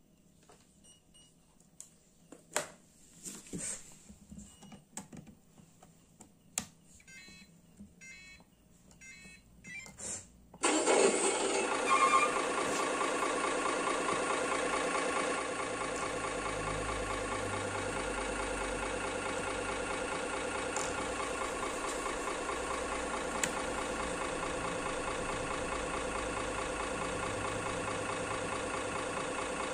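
RC truck engine sound module playing a simulated truck engine through its small speaker. A few clicks and taps come first; about ten seconds in, the engine sound starts abruptly and is louder for a few seconds, then settles into a steady idle.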